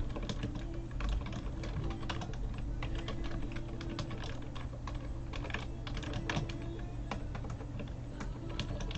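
Typing on a computer keyboard: a run of quick, irregular key clicks over a faint steady hum.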